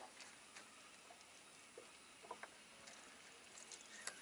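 Near silence, with a few faint, scattered small clicks.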